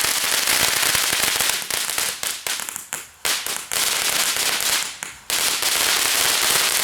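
Consumer firework cake going off: a dense run of rapid crackles and pops, with two short lulls.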